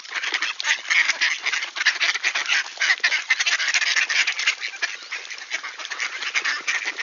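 A flock of mallard ducks quacking and chattering, many short calls overlapping without a break.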